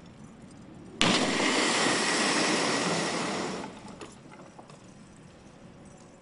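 Small helicopter test airframe slamming into a concrete pad in a swing-drop crash test: a sudden loud crash about a second in, followed by about two and a half seconds of loud noise that stops abruptly.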